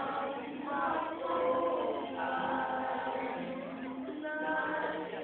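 A group of girls' voices singing together in chorus, holding long notes.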